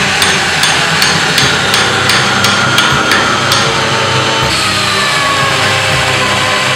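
A hammer struck in a quick, even rhythm, about three blows a second, stopping about three and a half seconds in, over a steady workshop machine noise that carries on alone.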